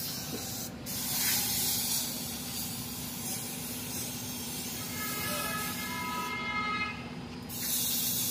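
Paint spray gun hissing steadily as compressed air and paint blast from the nozzle. About six seconds in the hiss cuts out briefly, while a steady pitched tone sounds for a couple of seconds.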